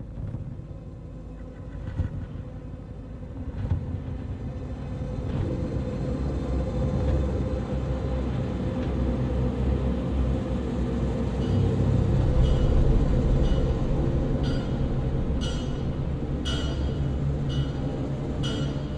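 A train running on rails, heard from beneath the carriage: a low, building rumble, with sharp metallic clacks about once a second from halfway in.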